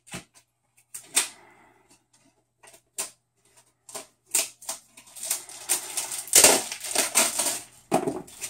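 Packaging being handled and opened by hand: scattered clicks and scrapes, then dense crinkling and crackling from about five seconds in.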